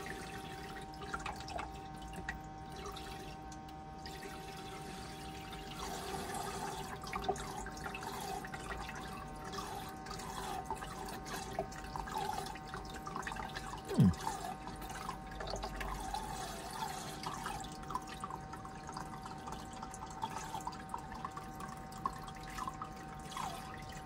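Thin stream of water trickling and dripping from a camper-van sink tap onto a hand, over a steady hum. A brief louder falling sound comes about fourteen seconds in.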